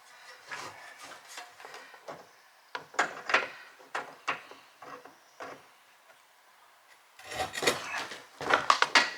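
Metal parts of a yard cart's axle and wheel being handled: irregular clicks, taps and scraping, then a quicker run of louder taps and scrapes near the end, as a retaining clip is fitted on the axle.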